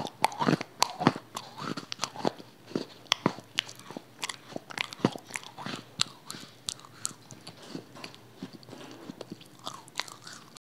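A person chewing crispy fried chicken right at a small microphone: many sharp, irregular crunches and mouth clicks.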